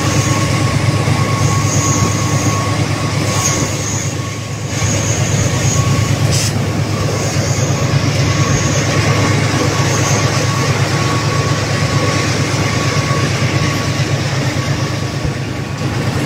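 GE Class 34 diesel-electric locomotive running under way, heard from its cab: a steady low engine drone over wheel and rail noise. A thin steady whine runs underneath, and short high squeals come and go every second or two.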